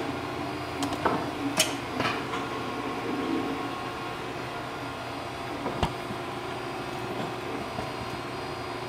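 Steady mechanical hum, like a fan or running appliance, with a few sharp clicks in the first two seconds and one more about six seconds in.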